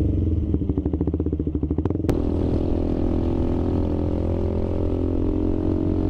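KTM 390 Adventure's single-cylinder engine pulling away from a stop, its rapid low-rev firing pulses plain for about two seconds. A sharp click comes about two seconds in, and after it the engine runs more steadily as the bike gathers speed.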